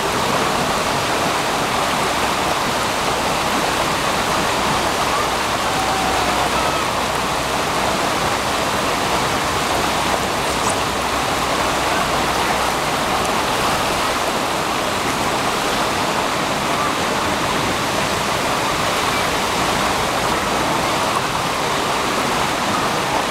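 Steady rushing and splashing of churned pool water: waves set up by large bobbing wave-generator balls break over rocks, and a small waterfall pours into the pool.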